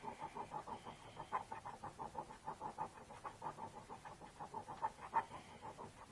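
Tascam Model 32 record head rubbed back and forth on wet 22,000-grit lapping paper, a fast, even rhythm of short rubbing strokes, about six a second. This is the final polishing stage of relapping a worn tape head.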